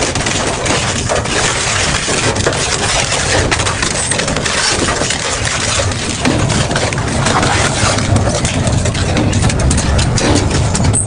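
Double-shaft industrial shredder running under load, its rotors tearing through material with a dense, irregular stream of cracks and crunches over the steady low hum of the drive.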